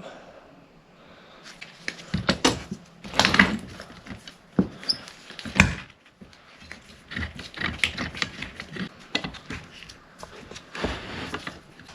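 Boards and clamps being handled for a glue-up: irregular knocks and clicks of wood set down and clamps being placed, a few louder clunks among quieter handling noise.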